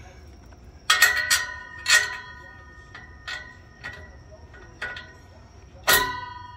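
Cordless impact wrench run in short bursts on a 15 mm socket, tightening a nut on an exhaust bracket; each burst is a sharp hammering hit that leaves the metal ringing. There are about eight bursts, three in quick succession about a second in and a strong one near the end.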